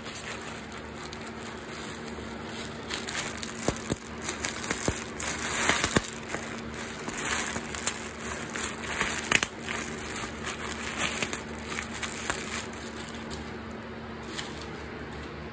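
Plastic bubble wrap squeezed and crumpled by hand: crinkling and crackling with sharp snaps of bursting bubbles, starting a few seconds in and dying away near the end.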